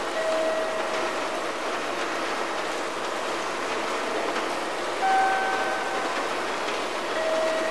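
Railway-station background noise, a steady rushing hiss, with a held electronic tone sounding every few seconds and alternating between a lower note and a higher one, each note about a second long.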